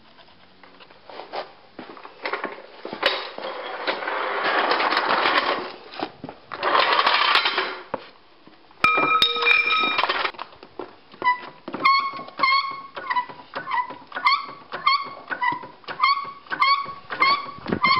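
Car jack being worked to lift a van, its handle squeaking in a steady rhythm a bit under twice a second from about eleven seconds in. Before that come clicks, two longer noisy stretches and a brief squeal.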